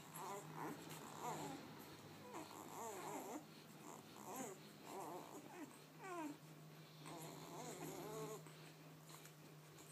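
Two-day-old English mastiff puppies squeaking faintly while they nurse, a string of short squeaks that rise and fall in pitch.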